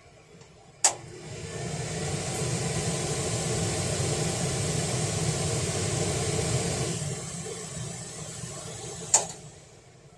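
Kitchen range-hood ventilation fan, running on a freshly replaced 6200ZZ motor bearing: a click as it is switched on, then it spins up over about a second to a steady whoosh of moving air. It eases down, a second click sounds near the end, and it runs down to quiet.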